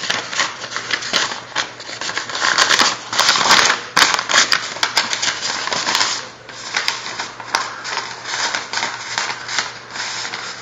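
A sheet of paper rustling and crinkling close to the microphone as it is handled and rolled into a tube, a continuous run of crackles.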